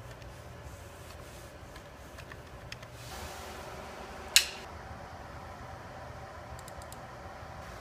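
One loud, sharp click with a short ringing tail about four seconds in: the power switch of an UP Plus 3D printer being switched on. Over a faint steady hum, with a few light clicks near the end.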